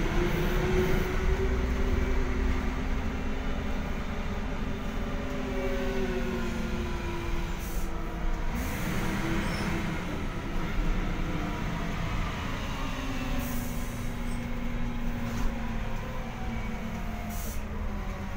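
City bus engine and drivetrain heard from inside the passenger cabin while the bus drives, a steady rumble with a whine that slowly shifts in pitch as it changes speed.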